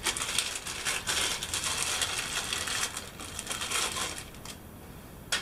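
Clear plastic packaging bag crinkling as it is opened and handled to take out a shower fitting, a continuous crackling rustle that dies away about four and a half seconds in. A single click follows near the end.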